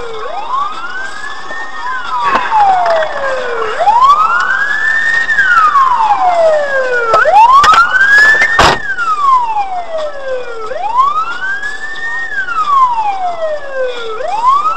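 Police car siren in a slow wail, the pitch rising and falling about every three and a half seconds. A single sharp knock cuts across it a little past the middle.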